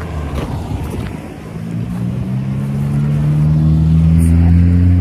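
A motor vehicle's engine running at low revs, a deep steady hum that grows louder from about two seconds in.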